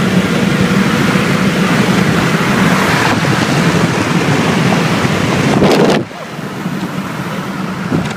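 Car accelerating hard in a roll race, heard from inside the cabin: a loud, steady engine, wind and road roar that drops off suddenly about six seconds in as the throttle is lifted.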